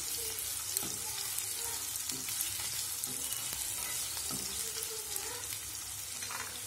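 Sliced onions sizzling in a little oil in a nonstick pan, frying toward golden brown, with a spatula scraping and stirring them a few times.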